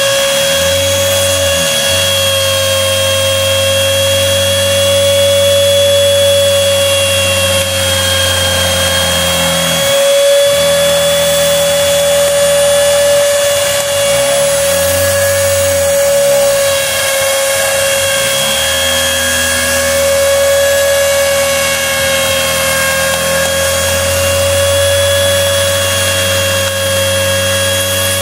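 Wood router spindle on a home-built CNC router running at a steady high whine while cutting curved slots through plywood. Underneath it a lower hum twice rises and falls in pitch, as the axis stepper motors speed up and slow down through the curves.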